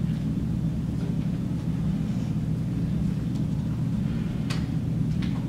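Steady low rumble of room background noise, with a few faint clicks near the end.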